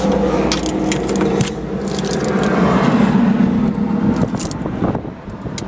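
A mini excavator's engine running steadily, with clattering, scraping and rattling as the cab's seat compartment cover is handled and closed. The running sound swells briefly about halfway through.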